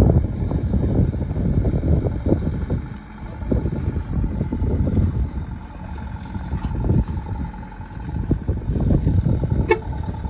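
Sugarcane truck, heavily loaded, running as it creeps toward the microphone, with an uneven low rumble. From a little past halfway a long steady horn tone sounds, and a sharp click comes near the end.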